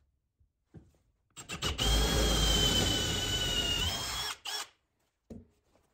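Hand-held power drill boring a bolt hole through a wooden workbench top. It runs for about three seconds with a steady high whine, stops, then gives one short second burst.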